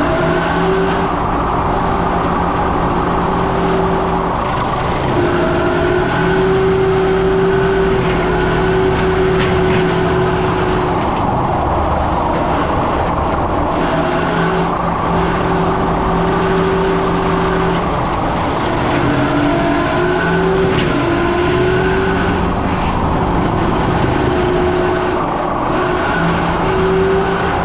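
Caterpillar 289D3 skid steer's diesel engine running steadily under load with its mower attachment, a droning hum with a whine that drifts up and down in pitch.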